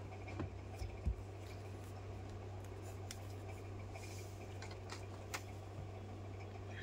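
Small clicks and a few soft knocks from handling things on a work table, the firmest knock about a second in, over a steady low hum.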